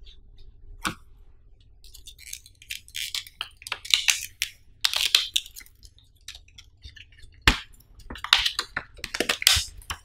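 Clear plastic blister packaging being handled and pried open by hand: irregular crinkling and crackling of the thin plastic, with a few sharp clicks, the loudest about seven and a half seconds in.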